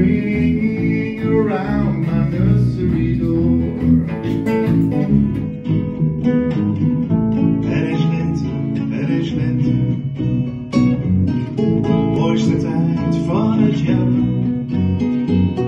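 Live band music: acoustic guitars strummed over a bass guitar, with a voice singing at times.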